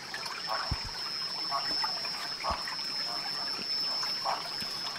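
Night-time forest chorus: an insect's steady high-pitched trill runs on unbroken, while shorter pulsed calls repeat about once a second. Two or three soft low thuds fall in the first half.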